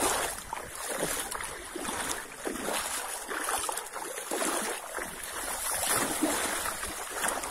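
Muddy floodwater sloshing and splashing in repeated, irregular swishes as someone wades through water standing on a dirt path, with a dog swimming and wading alongside.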